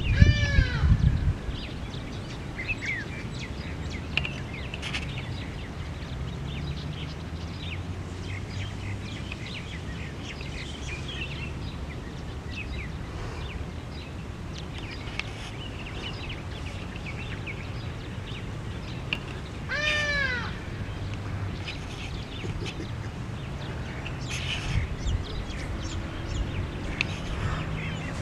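Outdoor ambience with wind rumbling on the microphone and scattered small bird chirps. A loud meow-like animal call rises and falls twice, once right at the start and once about 20 seconds in.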